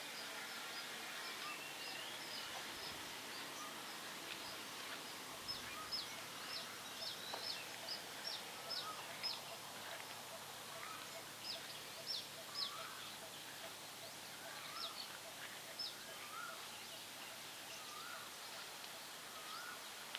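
Birds calling outdoors over a steady background hiss: many quick, high, downward-sliding chirps, and in the second half a separate repeated lower call every second or two.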